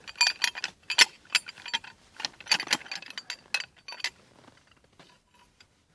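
Hand ratchet with a 72-tooth head clicking as it is worked back and forth on a tractor wheel nut, the socket clinking. The clicks come in quick irregular clusters and stop about four seconds in.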